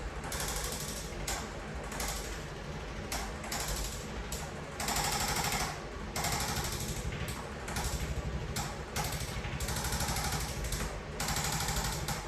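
Handheld electric percussion instrument hammering rapidly against the body, running in bursts of one to two seconds with short pauses as it is moved and reapplied.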